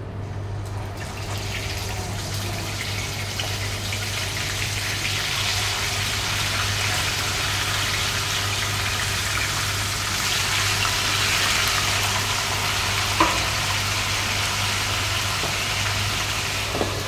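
Whole fish frying in hot oil in a nonstick pan: a dense crackling sizzle that builds about a second in as the fish go in and stays strong. A single sharp tap sounds about thirteen seconds in.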